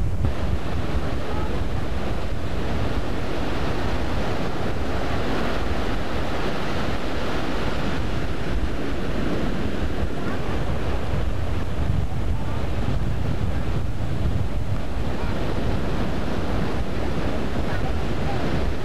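Ocean surf breaking and washing up the beach, a steady rushing noise, with wind buffeting the microphone and adding a low rumble.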